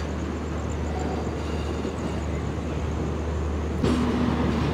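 Passenger train rolling slowly as it pulls out of a station, a steady low rumble heard from the open coach doorway. It grows a little louder near the end as the train picks up speed.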